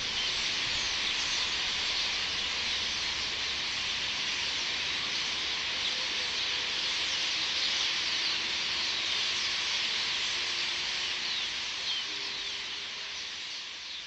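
A large flock of starlings chattering: a dense wash of many overlapping short calls that begins to fade near the end.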